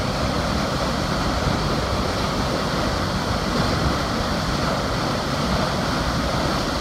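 Heavy flow of water rushing and churning through a concrete dam spillway channel, a steady, unbroken rush of white water.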